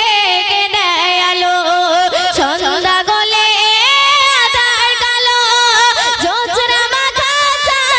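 Two female voices singing a Bengali Islamic gojol through microphones: long, drawn-out notes that waver and bend in pitch.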